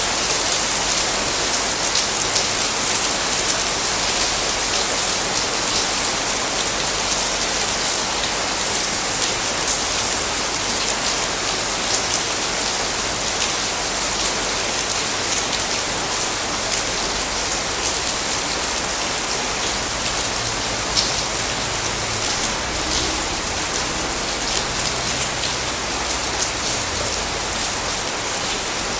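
Tropical rain falling steadily: a dense hiss of rain on surfaces, with many individual drops ticking sharply through it.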